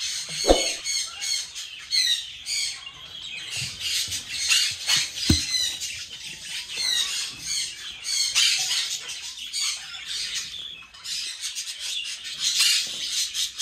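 Blue-crowned conures squawking and chirping in many short, high calls, with a couple of brief knocks about half a second and five seconds in.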